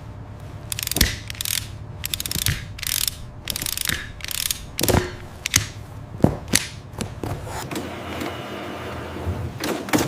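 Machinery clattering: irregular mechanical clicks and clanks, one or two a second, over a steady low hum. The clatter gives way to a steadier rushing noise about three-quarters of the way through.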